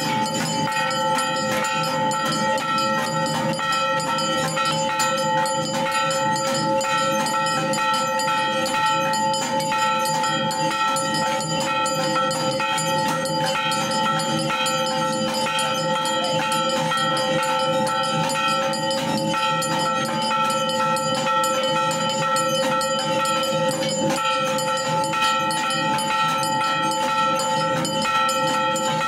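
Metal temple bells rung rapidly and without pause: dense clanging strikes over a steady, many-toned ringing.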